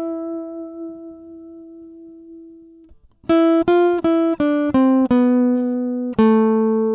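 Acoustic guitar played as a single-note melody: one plucked note rings and fades for about three seconds, then a quick run of about seven plucked notes steps downward and settles on a held lower note.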